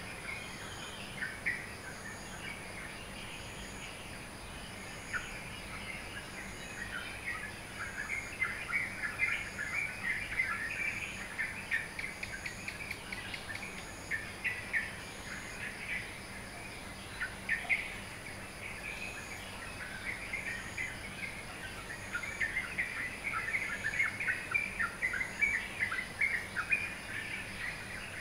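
Dawn chorus of many small birds chirping rapidly over one another, swelling into two busier stretches. A steady high whine lies underneath.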